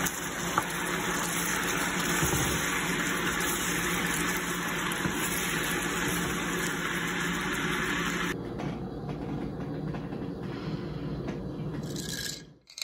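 Chicken pieces simmering in an orange-juice-based sauce in a skillet, a steady sizzling and bubbling. It drops to a quieter simmer about eight seconds in and fades out near the end.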